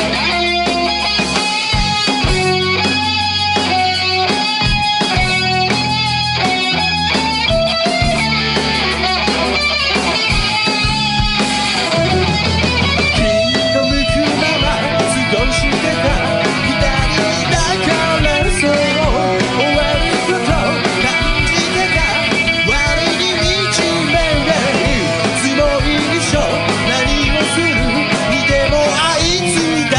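Rock band playing an instrumental passage led by electric guitar, with bass and drums, recorded straight from the line rather than through a room microphone.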